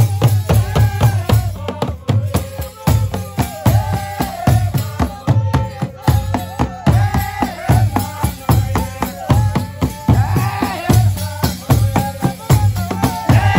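Traditional Rwandan drums (ingoma) beaten with sticks in a fast, continuous rhythm, with voices singing over them as dance accompaniment.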